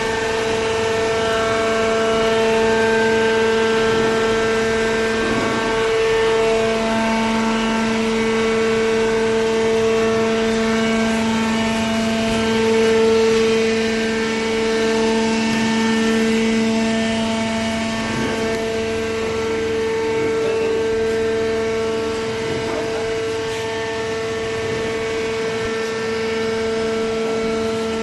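Fully automatic horizontal hydraulic cardboard baler running: a steady machine drone with a held whining tone. A lower hum swells in about seven seconds in and eases off around eighteen seconds.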